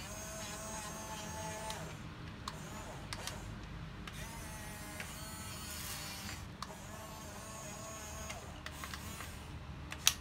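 Huina 1550 RC toy excavator's electric gear motors whining in several runs as the boom, arm and bucket move, the pitch rising and falling. About six seconds in, gravel pours from the bucket into a toy dump truck's bed with a hiss. A sharp click comes near the end.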